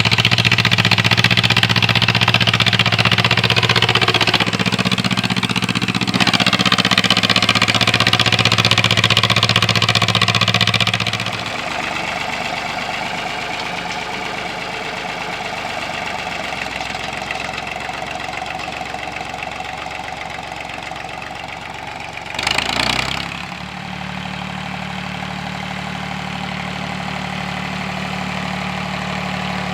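1947 John Deere Model M tractor's two-cylinder engine running steadily. It is louder for the first eleven seconds or so, then quieter and steady, with a brief loud rush of noise about twenty-three seconds in.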